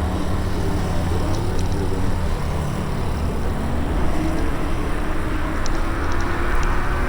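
Electric scooter ride: a steady rush of wind on the microphone and road noise, with a faint motor whine that rises slightly in pitch in the second half.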